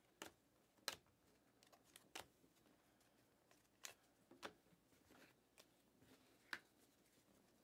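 Panini Mosaic basketball trading cards being flicked through by hand, one at a time: soft card slides and about six short, sharp card snaps spread unevenly through a quiet stretch.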